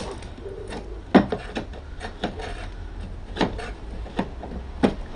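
Window weather strip being prised off a Triumph Acclaim's rear door by hand: scattered clicks and scraping as the strip and its clips are worked free, the sharpest click about a second in.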